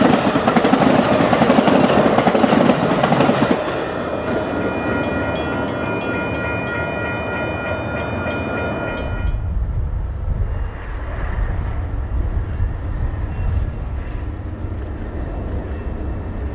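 Amtrak California Zephyr passenger cars rolling past with loud rushing wheel-on-rail noise, which drops after a few seconds as the train moves away, leaving a steady ringing of high tones. About nine seconds in, a deep low rumble of a distant train takes over.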